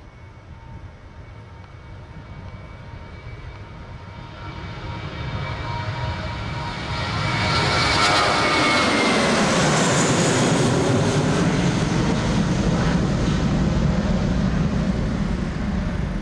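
Twin-engine jet airliner taking off and climbing out overhead. The engine noise builds steadily and is loudest from about eight seconds in as the jet passes, with a whine that falls in pitch, then stays loud as it climbs away.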